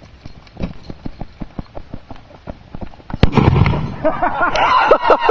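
Upside-down-loaded 2-inch firework mortar shell: its fuse fizzes and crackles with rapid pops, then a loud bang about three seconds in, followed by a sustained rushing crackle of sparks. The shell goes off at ground level in the tube instead of launching, because it was loaded the wrong way.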